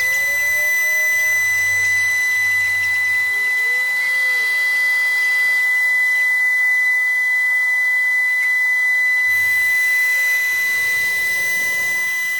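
Glass CNC machining center running while it mills an irregular-shaped glass piece, giving a steady, loud, high-pitched whine over a faint wash of noise.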